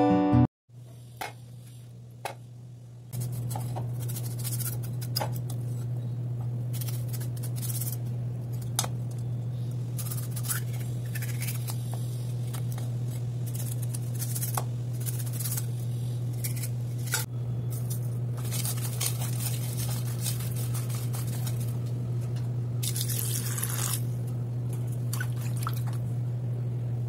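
Hands rubbing and turning raw pieces of avoli (pomfret) in water in a steel bowl: wet squishing, light splashes and small clicks of fish against metal. A steady low hum sets in about three seconds in and runs under it.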